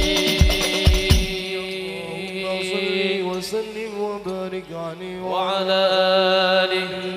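Shalawat chant sung with hand-drum accompaniment. The drum strikes stop about a second in, and the singing then holds long notes over a steady low drone, swelling again near the end before fading.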